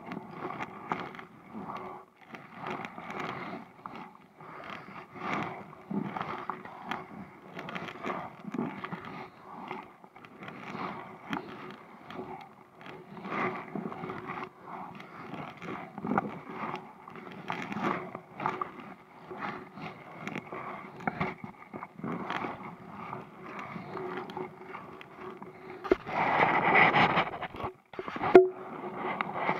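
Kayak paddling: irregular splashing and scraping strokes about once a second, with a louder stretch near the end.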